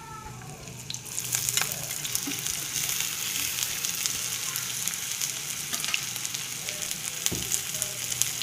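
Chopped onions sizzling in hot mustard oil in a karahi. The steady hiss, with scattered crackles, swells about a second in as the onions hit the oil.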